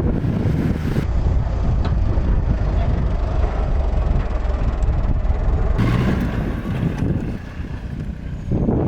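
Old Tata Safari 4x4 driving off-road, its engine running with a heavy low rumble that eases briefly near the end.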